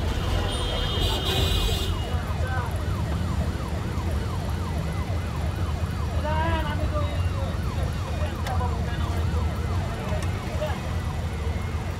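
A yelping siren wails in a fast rise-and-fall, about three cycles a second, over the steady low rumble of a city bus engine. A short, high-pitched horn blast sounds about a second in.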